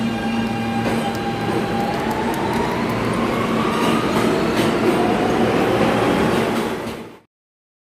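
Subway train pulling away, its motor whine rising in pitch as it picks up speed over a steady rumble. The sound cuts off suddenly about seven seconds in.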